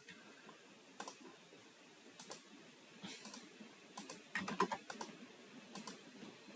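Typing on a computer keyboard: scattered keystrokes in short runs with pauses between them.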